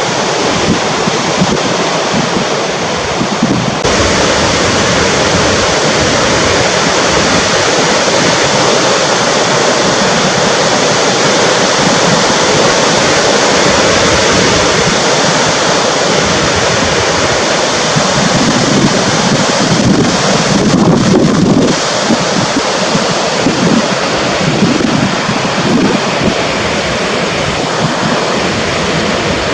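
Waterfall pouring in a loud, steady rush of water, with gusts of wind buffeting the microphone at times.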